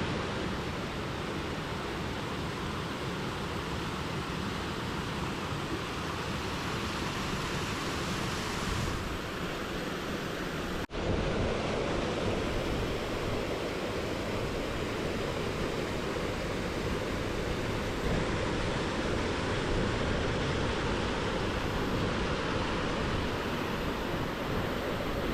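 Steady rushing of a fast-flowing mountain gill, a continuous even roar, somewhat louder after a cut about eleven seconds in.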